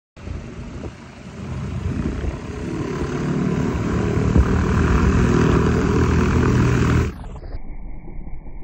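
Britten-Norman BN-2 Islander twin-engine propeller plane taxiing close by, its engines and propellers running and growing louder as it approaches. About seven seconds in the sound drops suddenly to a quieter, thinner hum.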